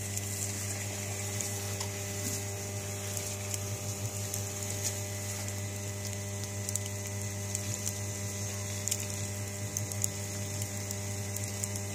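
Wood fire crackling with scattered sharp pops under a mess tin of tea at the boil, over a steady low hum.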